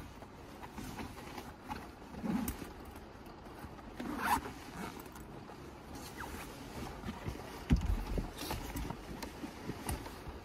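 Clothing rustling and a zipper being drawn as she adjusts her jacket, with a single dull thump about two-thirds of the way through.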